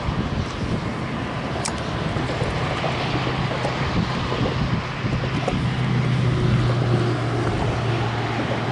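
Wind buffeting the microphone, with a steady low hum that comes up about three seconds in and grows stronger.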